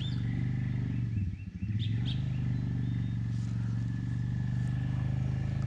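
A steady low engine drone, dipping briefly about a second and a half in.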